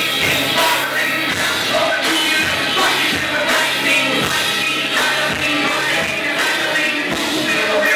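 Live rock band playing: electric guitar and a drum kit with a singer's vocals over them.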